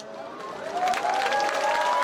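Fireworks crackling overhead while a crowd cheers and applauds. The noise swells over the first second, with long held whistles running through it.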